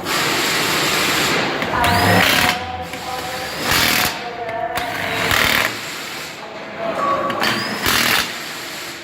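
Power impact wrench hammering lug nuts tight on a skid steer wheel, run in several bursts of a second or two. A short rising whine opens some of the bursts.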